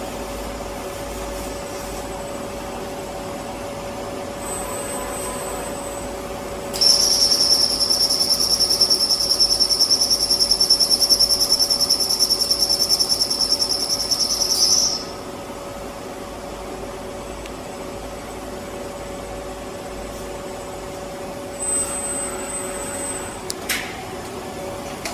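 Plasma welding arc whining: a loud, high-pitched tone with a fast flutter, lasting about eight seconds, over the steady hum of welding equipment. Near the end come a brief, fainter high tone and a sharp click.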